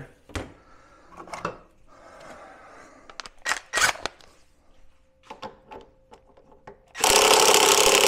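A few clicks and knocks as a tool is handled, then, about seven seconds in, a loud burst from an impact wrench hammering on the front axle of a Kawasaki Concours 1400 motorcycle to break it loose.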